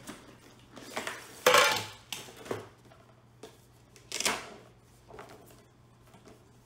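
Cardboard figure box and clear plastic blister tray being handled as the box is opened and the tray slid out onto a table. There is a loud scraping rustle about a second and a half in, another around four seconds in, and smaller knocks and rubs between them.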